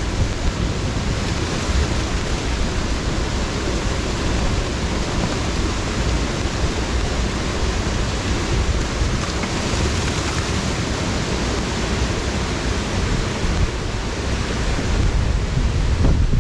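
Steady rush of water pouring over a creek's falls, an even noise without breaks.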